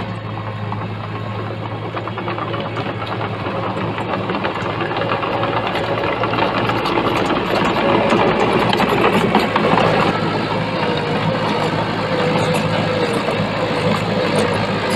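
Diesel engine of heavy earth-moving machinery running steadily and growing gradually louder, with a wavering mid-pitched whine over its low drone.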